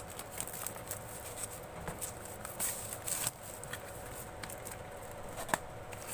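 Clear plastic shrink-wrap crinkling and crackling as it is peeled and pulled off a cardboard box, with a denser burst of crackling about two and a half to three seconds in and a sharp click near the end.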